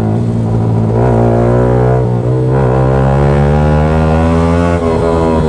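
Yamaha R15 V3's single-cylinder engine running through a loud SC Project aftermarket exhaust, heard from the rider's seat as the bike pulls steadily at fairly even revs.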